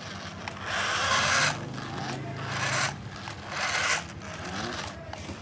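Toy RC tank's small drive motors whirring and its roller wheels rubbing and scraping as it drives over artificial turf and plastic netting. It comes in three short bursts.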